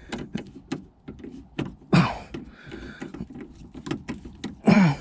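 Irregular clicks and light knocks of hands and tools working the plastic interior trim panels around a Volvo V70's tailgate, with two short sliding creaks, one about two seconds in and one near the end.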